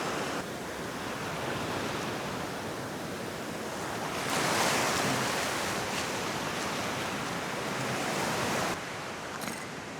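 Ocean surf washing onto a beach, a steady rush of breaking waves that swells louder for several seconds from about four seconds in, then drops back.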